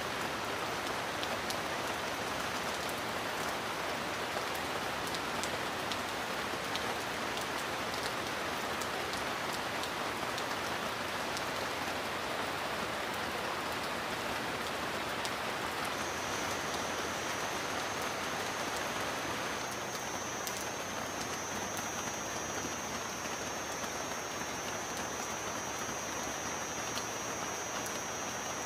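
Steady heavy rain falling, with a dense even hiss and scattered drop ticks. A thin, steady high whine joins about halfway through.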